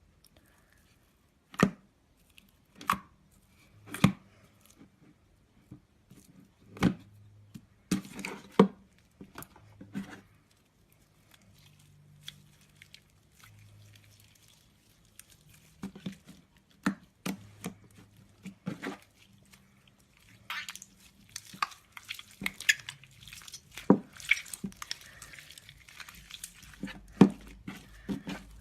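Slime being handled: sharp wet pops and clicks, about one a second at first, then denser crackling clicks through the second half.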